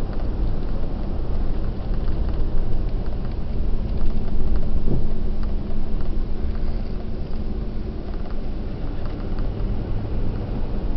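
Car driving on a highway, heard from inside the cabin: a steady low rumble of engine and tyres, with a steady hum through the middle.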